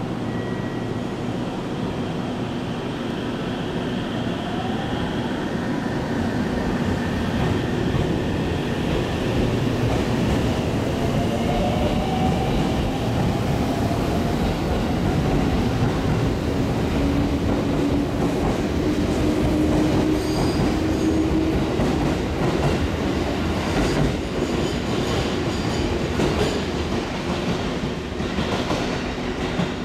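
A coupled JR 313 series and 211 series electric train pulls away from the platform and speeds up past the listener. Its motor whine rises in pitch through the first half, and in the second half the wheels click over the rail joints as the cars go by.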